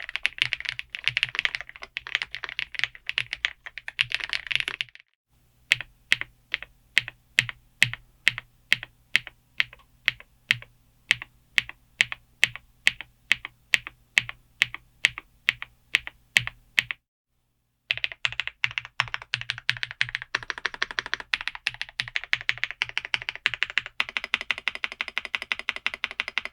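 Typing on a gasket-mount mechanical keyboard with Huano Matcha Latte linear switches and thick PBT keycaps: a fast run of keystrokes, then one key pressed over and over at about two and a half strokes a second, then after a short pause fast typing again.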